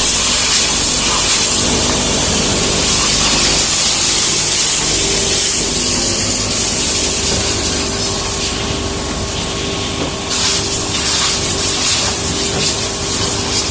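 Oblique grinder for plywood face panels running: a loud, steady grinding hiss with a machine hum underneath, easing a little about two-thirds through.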